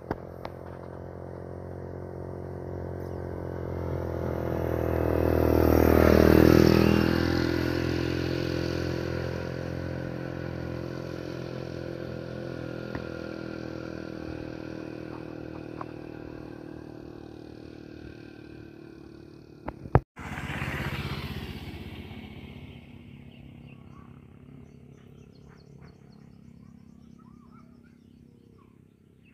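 A vehicle engine passing close by, with a steady pitched note. It swells to its loudest about six seconds in and slowly fades. After a sudden break near the twenty-second mark, it swells briefly again and dies away.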